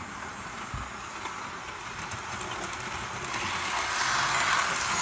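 Two double-headed model railway locomotives, a P2 and an A1 'Tornado', running on track with a steady whir of motors and wheels. It grows louder over the last couple of seconds as they come closer.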